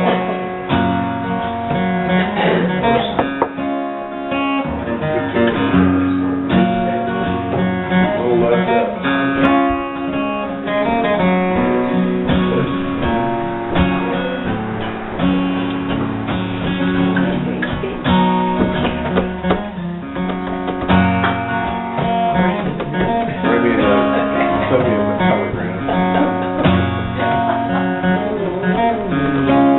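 Solo acoustic guitar played live: a steady, unbroken run of picked notes and strummed chords.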